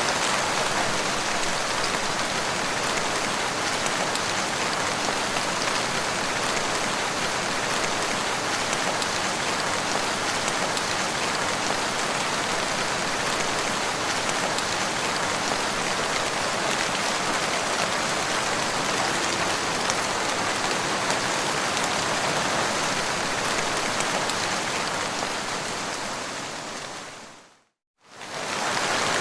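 Steady rain falling and pattering on the ground, an even hiss of drops. Near the end it fades out to silence for a moment and then comes straight back.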